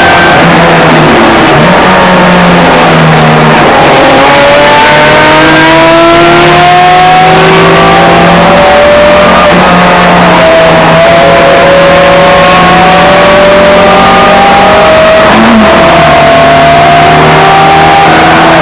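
Ford Escort Mk1 1300GT's four-cylinder engine, very loud, revving up hard again and again, its pitch climbing and then dropping back at each gear change or lift before climbing again.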